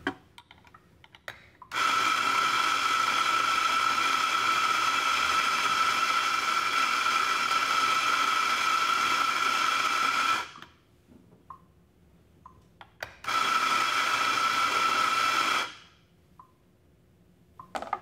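Electric espresso grinder grinding coffee into a portafilter: a steady, high motor whine for about nine seconds, then a second, shorter run of about two and a half seconds, with a few light clicks in between.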